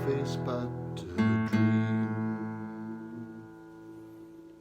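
Acoustic guitar playing the closing strums of the song's accompaniment. A final chord is left to ring and slowly fade away.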